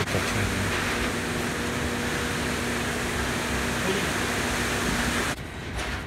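Concrete mixer truck running steadily with a faint hum while concrete is discharged down its chute and raked out; the noise cuts off suddenly about five seconds in, leaving a quieter background.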